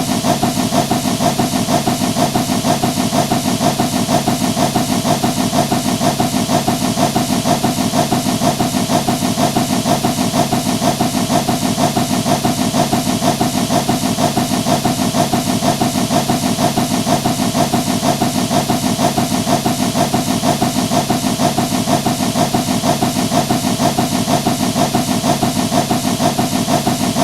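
Locomotive engine sound effect running steadily, with a fast, even pulse and a hiss over it.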